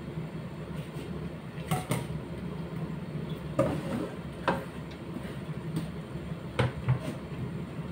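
Kitchen prep clatter: scattered sharp knocks of a knife and cutting board, and the cut cabbage being scraped and tipped into a stainless steel pot, over a steady low hum.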